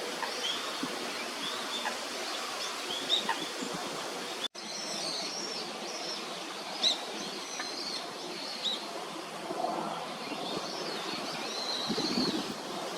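Birds calling in short, high chirps over steady background noise, with a brief break in the sound about four and a half seconds in.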